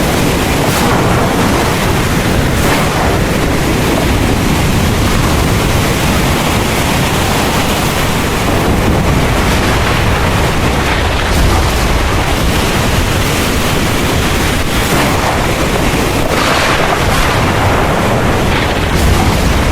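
Heavy rain pouring steadily, a loud, even hiss with a low rumble underneath and a few brief swells in intensity.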